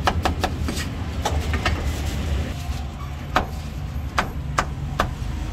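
Steel cleaver chopping on a thick wooden chopping block: a quick run of strokes slicing cucumber at the start, then single chops through roast pork about half a second to a second apart. A steady low rumble runs underneath.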